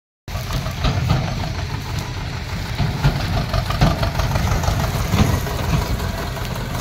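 Deutz-Fahr 4055 tractor's diesel engine running as it tows a loaded trolley, with a steady low pulsing throb.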